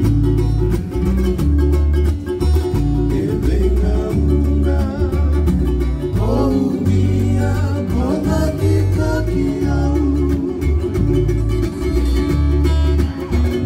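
Live acoustic guitar strumming over an electric bass guitar holding deep sustained notes, with a man's voice singing the melody in the middle stretch.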